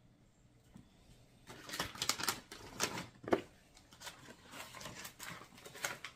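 Foil Mylar bag crinkling and rustling, with knocks from a plastic funnel, as the funnel is fitted into the bag's mouth. The crackles start about a second and a half in and come irregularly.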